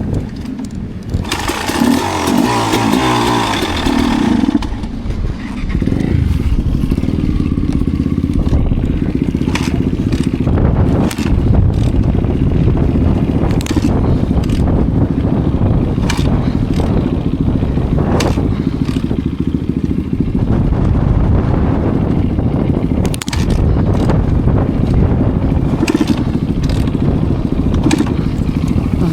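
Enduro dirt bike engine running under way on a trail, with frequent short knocks and clatter from the rough ground. There is a brighter rushing stretch about a second in that lasts around three seconds.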